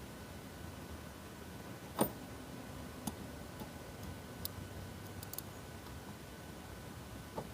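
A few scattered light clicks and knocks, the loudest about two seconds in, over a faint steady hum.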